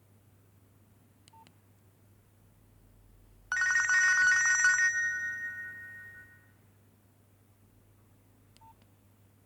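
A Nokia 2610 mobile phone's speaker plays a short electronic ringtone, a bright trill of several high notes. It starts suddenly a few seconds in, holds for about a second and a half, then fades away. A faint short beep comes about a second in and another near the end.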